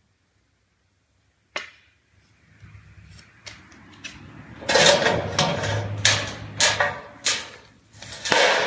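Sheet-metal box gutter being handled on a concrete floor: a single sharp tap, then a series of loud clattering knocks and scrapes as the metal is gripped and moved.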